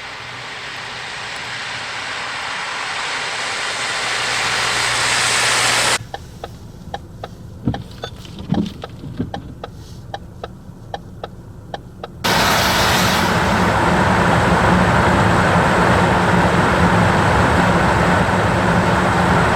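Steady noise of a vehicle driving, swelling over the first six seconds and then cutting off. A quieter stretch follows with a run of regular clicks. Loud driving noise with a low engine hum cuts back in about twelve seconds in.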